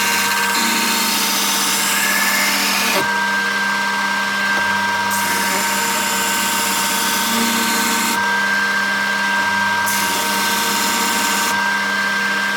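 Belt grinder running steadily while a knife blade held in a bevel jig is passed across the abrasive belt, grinding the bevel; the hiss of steel on the belt comes and goes in three passes of a few seconds each over the motor's steady whine.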